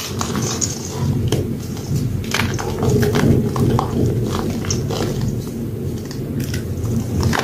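Hands squeezing and crushing wet hydrophobic chalk in a metal bowl of water: a steady, dense squelching and crumbling, with many irregular little crackles as clumps break apart.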